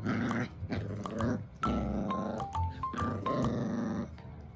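A small poodle-mix dog growling in play as it tugs on a plush toy, over background music with a light stepped melody.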